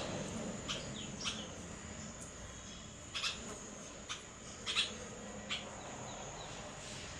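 Short, sharp animal chirps, one or two at a time at irregular intervals, over a steady faint high-pitched tone.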